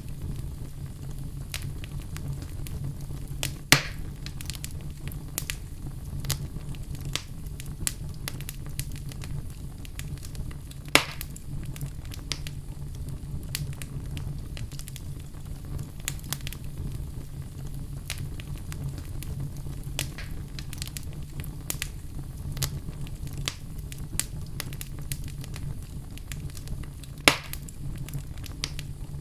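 Fire burning in a fireplace: a steady low rumble of flames under frequent small crackles, with three loud sharp pops spread through.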